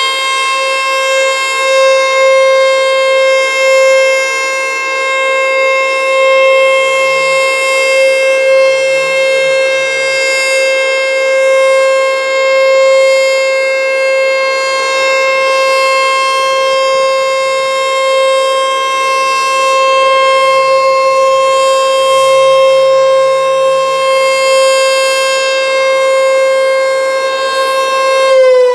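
American Signal T-121 outdoor warning siren sounding a loud, steady single tone during an emergency siren test, its level swelling and dipping slightly. At the very end its pitch starts to drop as it begins to wind down.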